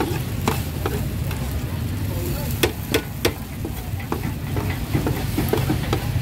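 Food frying in a pan while being stirred, with sharp clinks of a utensil against the pan at uneven intervals over a steady low rumble.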